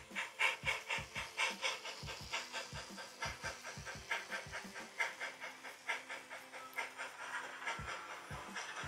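On30 model narrow-gauge steam locomotive chuffing steadily at about three beats a second over a soft hiss.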